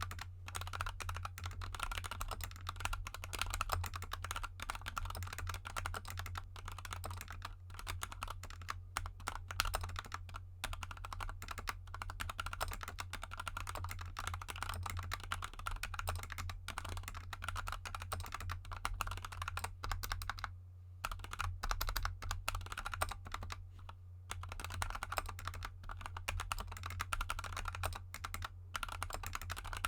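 Fast, continuous typing on a GK64 mechanical keyboard with lubed Gateron Yellow linear switches and XDA keycaps. The keystrokes come as a dense stream of clicks, with short pauses about two-thirds of the way through.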